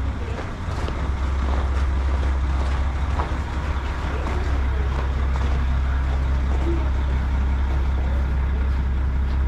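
Diesel railcar running steadily along the line: a constant low engine drone with the rumble of the wheels on the rails and faint scattered clicks.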